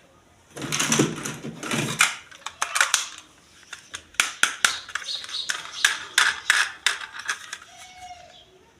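Toy unboxing handling sounds: a rustle of packaging about half a second in that lasts about a second and a half, then a run of sharp, irregular plastic clicks and taps.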